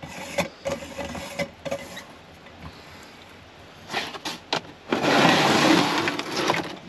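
Handling noises: scattered small clicks and knocks, then a dense rustling, scraping noise lasting about a second and a half near the end.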